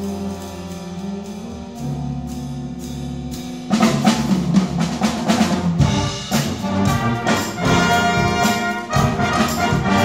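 Batterie-fanfare (brass and percussion band) playing a concert piece: soft held low brass chords, then about four seconds in the full band comes in loudly with brass and regular percussion strikes.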